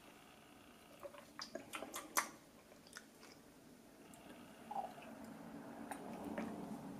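A person drinking water from a glass jar: a few faint gulps and swallows with small mouth clicks about a second in, then a faint low hum toward the end.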